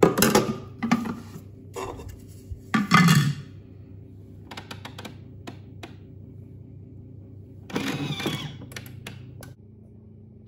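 Kitchen handling noises around a Thermomix food processor: a few short knocks and clatters, the loudest at the start and about 3 and 8 seconds in, over a low steady hum that stops shortly before the end.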